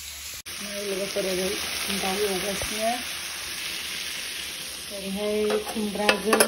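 Chicken pieces sizzling as they fry in oil and masala in a metal kadai, with a pitched, voice-like sound coming and going over it. A few sharp metal clinks near the end as the pan's lid and ladle are handled.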